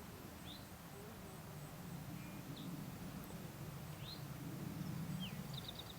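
Small songbird chirping: a few brief, high, separate chirps, then a quick run of four or five notes near the end, over a low steady rumble.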